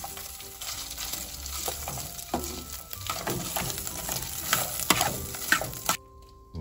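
Pieces of beef frying in sesame oil in a thin aluminium pot, stirred and scraped with a metal spoon that clinks repeatedly against the pot. The sound cuts off abruptly about six seconds in.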